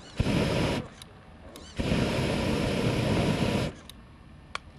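The flamethrower on a Traxxas E-Maxx RC truck fires twice: a short burst of under a second, then a longer one of about two seconds. Each is a loud rushing hiss of burning gas that starts suddenly and cuts off sharply. A few sharp ticks come between and after the bursts.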